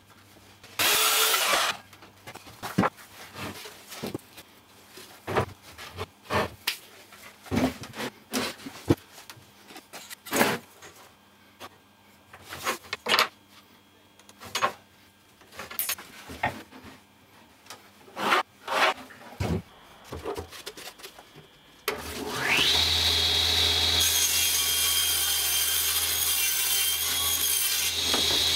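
A brief loud burst of power sawing about a second in, then scattered knocks and clatters of tools and boards on a workbench. About 22 seconds in, a table saw starts, its motor whining up to speed, and then runs steadily with a low hum.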